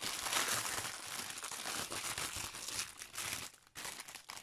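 Clear plastic packaging crinkling as hands handle and turn the bagged diamond painting kit, a dense crackle that eases briefly near the end before going on more quietly.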